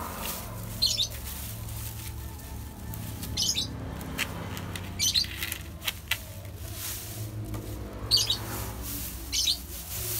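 Dry alang-alang grass rustling and swishing in short bursts every one to three seconds as bundles of thatch grass are handled and folded over a bamboo batten, over a steady low hum.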